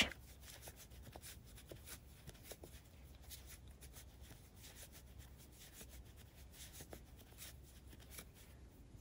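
Faint, irregular rustling and small scratches of chunky yarn being drawn through stitches with a crochet hook.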